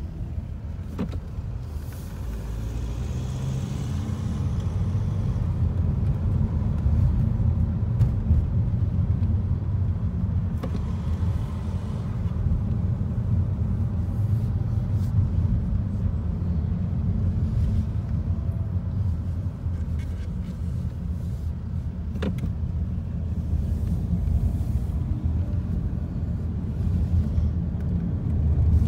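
Car driving, heard from inside the cabin: a steady low rumble from the moving car, with a few faint knocks along the way.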